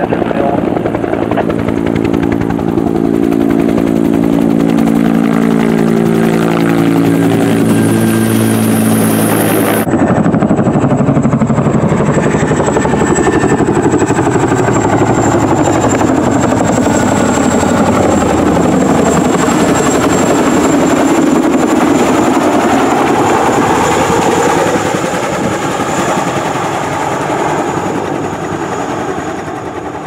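Two-bladed Bell Huey-type firefighting helicopter passing close during a water drop, its rotor tone falling in pitch as it goes by. About ten seconds in the sound cuts to a tandem-rotor Chinook helicopter flying low overhead, a dense rotor noise with slowly sweeping tones.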